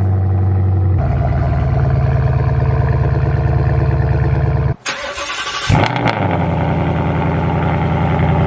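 V8 car exhaust idling loudly. It cuts off about five seconds in, then an engine fires with a brief flare and settles back into a steady idle.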